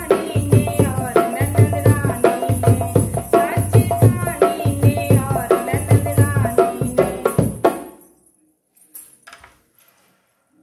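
A woman sings a sohar folk song, accompanying herself on a dholak barrel drum struck in a steady beat with deep bass strokes. The song and drumming stop about three-quarters of the way through, followed by a couple of faint knocks.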